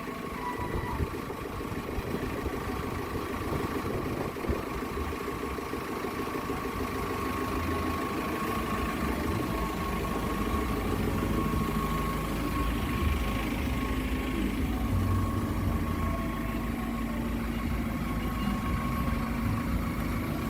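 Diesel engine of a backhoe loader running steadily, with a thin steady whine over it; the low rumble gets heavier about halfway through.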